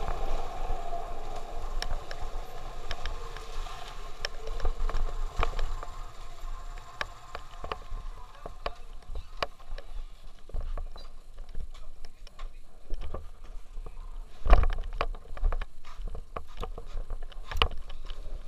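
Motorcycle ridden slowly and pulled up on a rough village road, heard from the bike: the engine note eases off and fades over the first few seconds, then low wind rumble on the microphone with scattered knocks and rattles, the heaviest a thump about fourteen seconds in.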